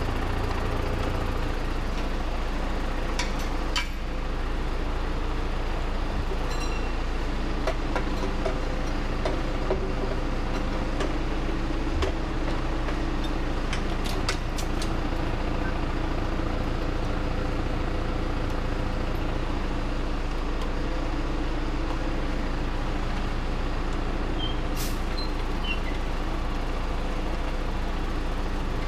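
John Deere tractor's diesel engine running steadily, with a few short clicks over it.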